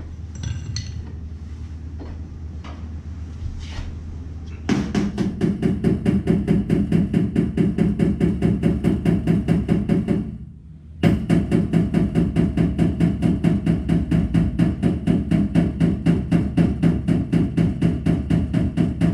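A power tool hammering rapidly on the dented sheet-metal body panel, about nine even blows a second over a steady drone, after a few seconds of faint taps and clicks. It winds down and stops just after ten seconds, then starts again abruptly a second later.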